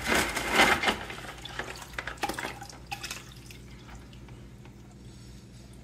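Water splashing and dripping as a hand rummages in a bucket of water, scooping out rock and bio-pellet pieces into a plastic tub. The splashing is loudest in the first second, then turns to scattered drips and light knocks, and fades to a faint steady hum after about three seconds.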